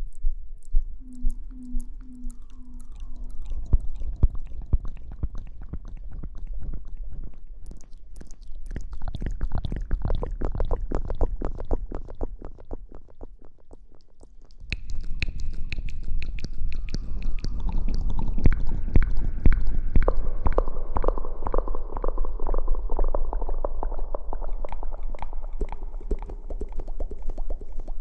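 ASMR rustling and rubbing right against the microphone: a dense crackle of tiny clicks, sparser at first, easing off briefly about halfway, then fuller and louder for the rest.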